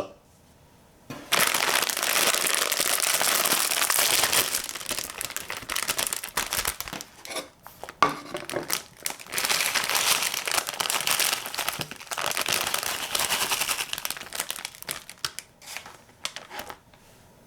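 A bag of chips being opened and handled, its crinkly packaging crumpling loudly. The crinkling starts about a second in, runs steadily for a few seconds, then comes in shorter bursts with pauses, dying away near the end.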